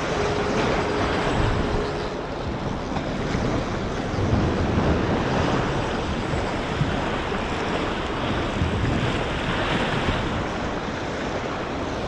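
Surf washing and splashing against the jetty's rocks, swelling and ebbing, with wind buffeting the microphone.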